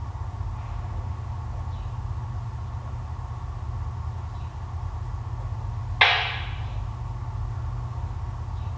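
Steady low engine rumble, with one sudden sharp hissing burst about six seconds in that fades away within a second.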